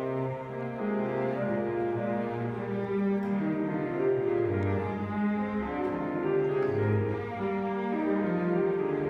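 Cello and grand piano playing a classical cello sonata together, the cello bowing long notes that change pitch over the piano's accompaniment.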